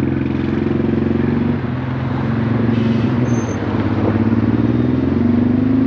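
Honda Transalp V-twin motorcycle engine running steadily while riding through city traffic, with the pitch rising a little near the end as it speeds up.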